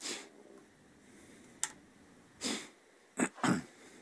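A man sniffing and breathing close to the microphone, with a single sharp click about one and a half seconds in and a couple of short thuds near the end.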